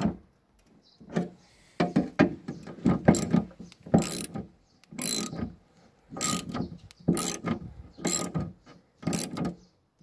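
Hand ratchet being swung back and forth, a short run of clicks on each stroke, about one stroke a second.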